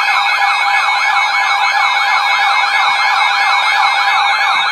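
Electronic siren-style alert tone sounding ahead of an Emergency Alert System flash flood warning: fast rising-and-falling wails, several a second, over steady electronic tones.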